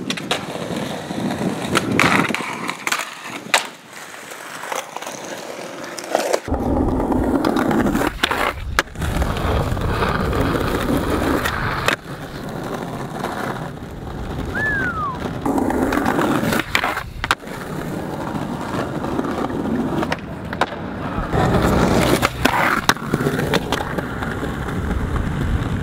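Skateboard wheels rolling over concrete, with several sharp clacks of the board popping, hitting ledges and landing.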